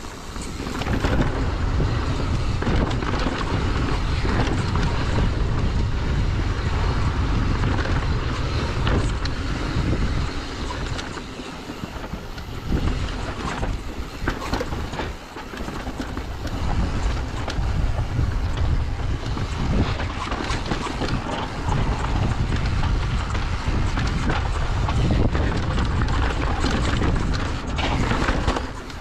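Wind rushing over the camera microphone of a mountain bike riding down a rocky dirt trail, with a heavy rumble and many short knocks and rattles from the bike jolting over bumps. The noise eases briefly a few times around the middle.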